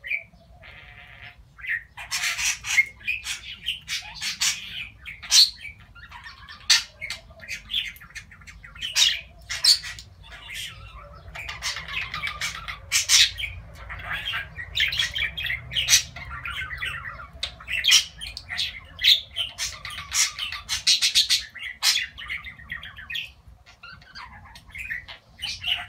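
Budgerigars chattering and warbling: a dense, unbroken run of quick chirps, clicks and squawks that starts about two seconds in.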